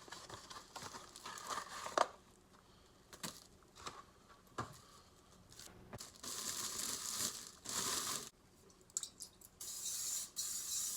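Plastic packaging crinkling and rustling as it is handled and torn open, with scattered clicks and knocks; two longer stretches of rustling come in the second half.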